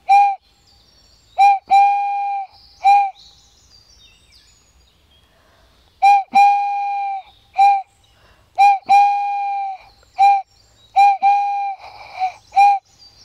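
A handmade whistle blown in a series of short and long toots at one steady pitch, with a pause of about three seconds partway through.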